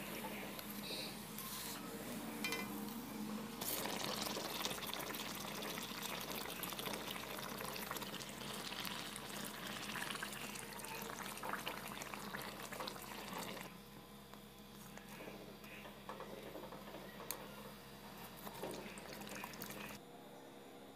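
Aloo suji puri deep-frying in hot oil in a kadai: a steady sizzle and crackle as oil is ladled over it. The sizzle drops to a quieter level about two-thirds of the way through, and falls off again near the end.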